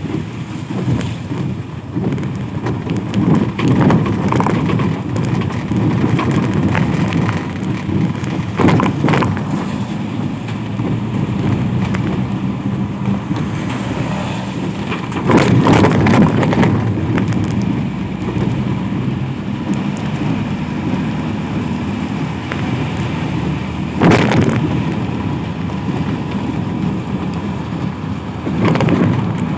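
Traffic passing on a wet road in the rain: a steady hiss of rain and tyres, with a few vehicles going by louder, the loudest about halfway through.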